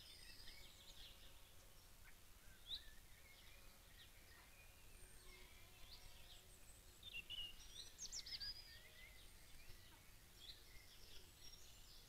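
Faint birdsong from several birds at once, a scatter of short chirps and whistles, busiest a little past the middle, over a low steady hiss and rumble.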